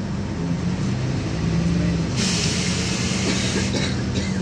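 Inside a moving LiAZ-5292.21 city bus: the engine and drivetrain drone steadily, their hum shifting in pitch about two seconds in. At the same moment a loud hiss of air from the bus's pneumatic system cuts in for about a second and a half.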